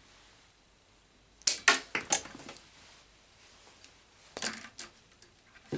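Wire cutters snipping and handling the ballast's lead wires: a quick cluster of sharp clicks and snips about a second and a half in, and a few more around four and a half seconds.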